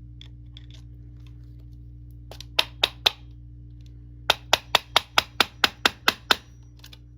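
Hammer striking the steel laminations of a warded padlock to knock a plate loose. There are three quick strikes, then a steady run of about ten at roughly five a second.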